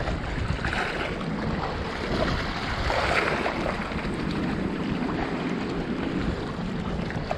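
Wind buffeting the microphone, with small waves washing and splashing over shallow rocks; the water swells up a little about one and three seconds in.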